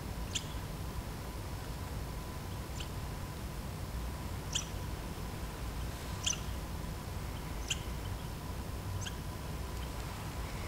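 A small animal gives short, high chirps, about six of them, roughly every second and a half, over a low steady rumble.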